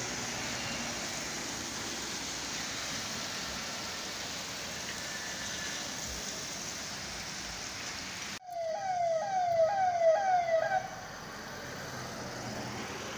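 A steady hiss of street noise, then a vehicle siren sounding in about five quick rising whoops, roughly two a second, for some two seconds before it stops, leaving passing traffic.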